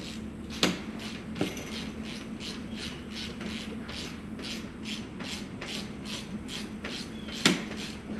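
Sharp metallic clanks from steel chain-link kennel panels and their fittings being handled, twice in the first second and a half and once near the end. Under them runs a steady high-pitched pulsing, about three pulses a second.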